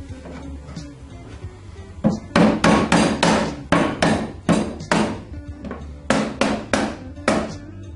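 A hammer striking repeatedly, a run of about fifteen sharp blows in quick uneven groups starting about two seconds in, as parts are knocked together during drawer cabinet assembly.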